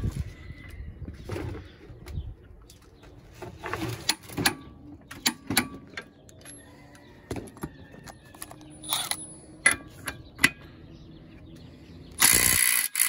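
Scattered metal clicks and knocks as tools and a socket are handled on a bench vise. About twelve seconds in, a Milwaukee M12 Fuel 2453-20 impact driver hammers on the socket in one loud burst lasting about a second.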